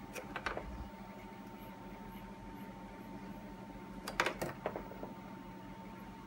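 A few light, sharp clicks and taps from a metal mechanical pencil being handled over paper: a pair near the start and a quick cluster about four seconds in, over a faint steady hum.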